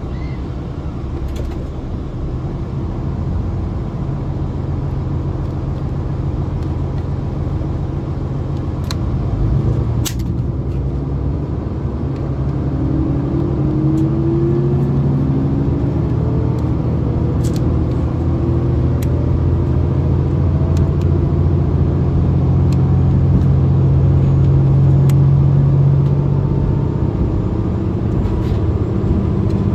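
Diesel railcar engines running at a train crossing, heard from inside a train, building in loudness as they rev up for departure, with rising engine notes around the middle. A couple of sharp clicks about ten seconds in.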